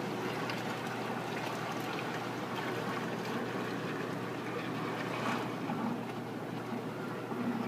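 Steady rush of water circulating in reef aquarium systems, with a low, steady hum underneath.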